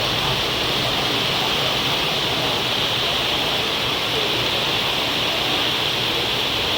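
Heavy rain falling, a loud, steady, dense hiss.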